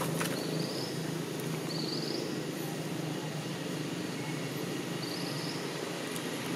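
Steady outdoor background: a constant low hum with a few faint, short high chirps scattered through it.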